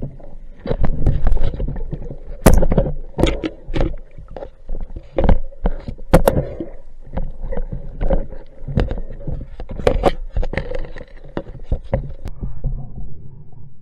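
Water churning and sloshing around a speargun-mounted camera as it breaks the surface and goes under, with many sharp knocks and clicks against the camera housing.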